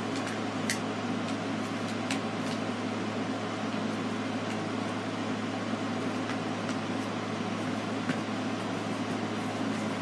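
Steady room hum from an air-conditioning unit, with a few short crackles of paper being folded and creased.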